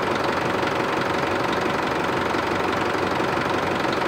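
Isuzu four-cylinder turbo-diesel engine idling steadily with the radiator cap off, running to circulate new coolant and purge air from the cooling system.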